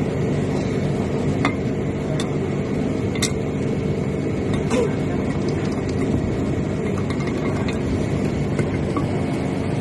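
Steady drone of a ship's engine-room machinery, with a few sharp metallic clinks of hand tools and parts during a refrigeration compressor overhaul.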